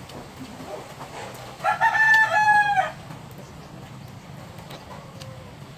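A rooster crowing once, a single call of just over a second near the middle, falling slightly in pitch at its end.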